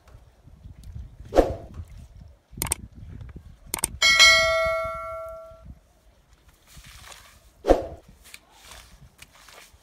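A bell-like notification ding sound effect rings out about four seconds in and fades over a second and a half, just after a couple of sharp clicks. Around it come a few wet swishing strokes of a stiff push broom scrubbing a soaked rug on wet concrete.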